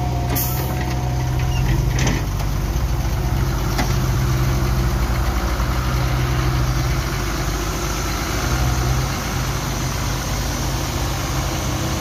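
Ashok Leyland tipper truck's diesel engine idling steadily, heard close up beside the truck.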